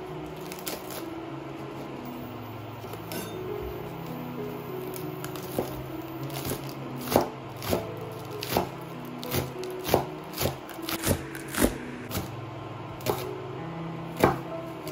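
Chef's knife chopping green onions on a wooden cutting board: a run of sharp knocks of the blade on the board, irregular at about one or two a second, starting about five seconds in, over soft background music.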